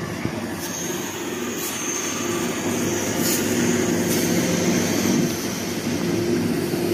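Steady machinery drone with a low hum and a faint high whine that fades out about four seconds in.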